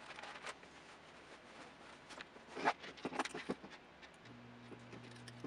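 Light clicks and rattles of a small brushless camera gimbal frame being handled while zip ties are fitted, with a cluster of louder clicks about halfway through. A low steady hum comes in near the end.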